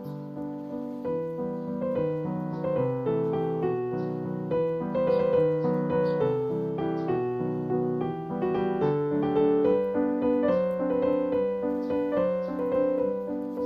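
Background piano music: a gentle melody with chords, several notes a second.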